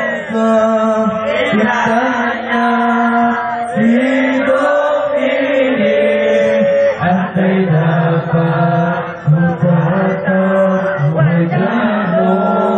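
A man's voice chanting sholawat, an Islamic devotional song praising the Prophet, through a microphone and loudspeakers, in long held and ornamented melodic phrases.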